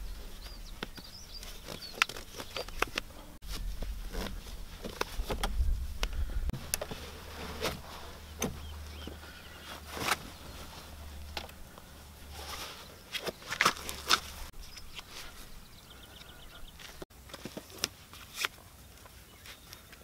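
Scattered light knocks, clicks and rustles of someone moving about and handling gear, irregular and clustered in a few short bursts, over a low steady rumble.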